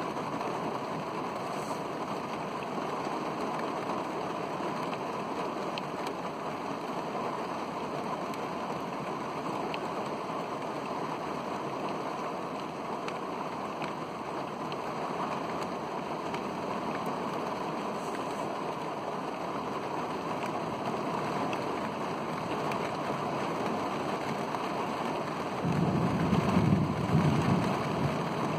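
Heavy rain falling steadily throughout a thunderstorm, with a low rumble of thunder starting near the end.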